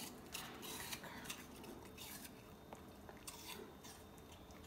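Bernese mountain dog puppy crunching and chewing a piece of apple: a run of crisp crunches in the first two seconds, then a few more about three seconds in.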